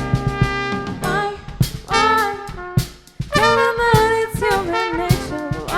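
A song's instrumental break: brass and saxophone lines over a drum beat.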